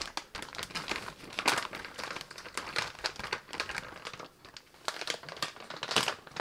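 Zip-top plastic bag crinkling and rustling in irregular bursts as it is handled and fish-fry coating is poured in over the fillets, with a brief lull about four seconds in.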